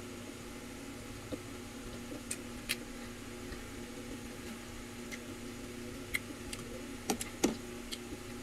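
Eating sounds: scattered sharp clicks and mouth noises from chewing grilled barbecue and handling bamboo skewers, the loudest two close together near the end. Under them the steady hum of an electric fan.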